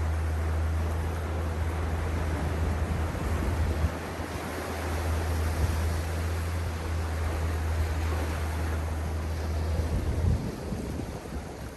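Sea waves washing onto a beach, a continuous hiss of surf, with a steady low rumble under it that stops near the end.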